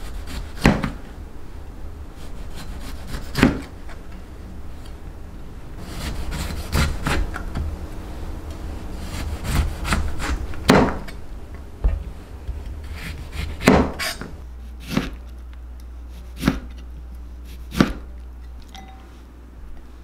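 Chef's knife slicing whole lemons into rounds on a plastic cutting board: about a dozen irregular sharp knocks as the blade meets the board, with short sawing strokes between. A low steady hum runs underneath.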